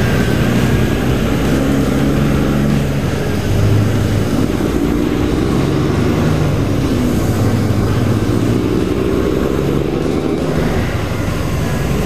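Peterbilt 379 semi's Caterpillar diesel engine pulling a loaded lowboy trailer away under load, its pitch rising and dropping several times as it goes through the gears.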